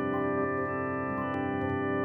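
Lo-fi ambient electronic music from a keyboard-and-sampler jam: a dense held drone chord of many sustained tones, with a few notes changing around half a second and again past a second in.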